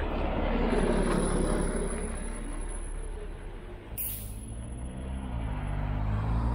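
Large diesel vehicle, such as a bus or truck, running in street traffic, with a short sharp air-brake hiss about four seconds in; its engine note then grows louder and rises as it pulls away.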